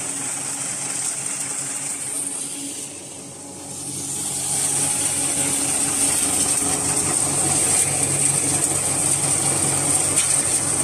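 Hammer mill grain grinder running, a steady mechanical hum under a high whine. It drops off briefly about three seconds in, then runs louder.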